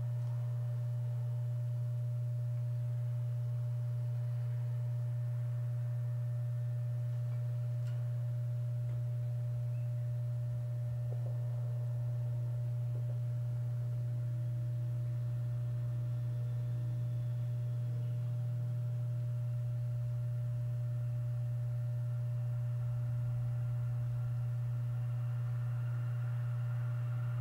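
A steady low-pitched hum, one unchanging tone, with the faint sound of an approaching diesel train building slightly under it near the end.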